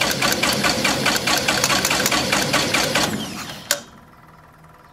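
Electric starter cranking a Hummel Engines 45 hp half-VW two-cylinder aircraft engine, turning it over with a rapid, even beat of compression strokes. The engine does not fire because the magnetos are switched off. The cranking stops a little after three seconds in and ends with a sharp click.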